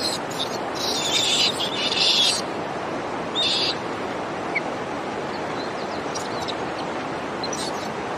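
Baby Japanese macaque giving several short, high-pitched squealing cries in the first few seconds, then falling quiet, over a steady hiss-like outdoor background noise.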